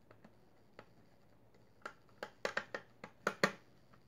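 A run of about eight small, sharp clicks and taps over a second and a half, starting just under two seconds in. This is handling noise from the diecast car and its plastic display base as someone starts to unscrew the car from the base.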